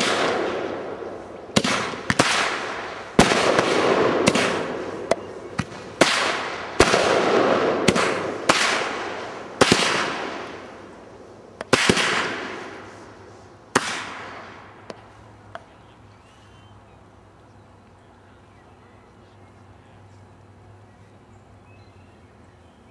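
Parachute Battalion consumer firework cake firing its shots one after another: about fifteen sharp launch pops over some fifteen seconds, each trailing off in a fading rush. The later shots are spaced further apart until the last one. After the final shot only faint outdoor background remains.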